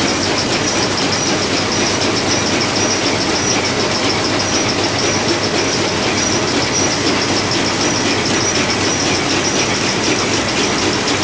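Biscuit packing line running: vibratory feeders and steel conveyors give a loud, steady mechanical clatter, with a regular high ticking on top.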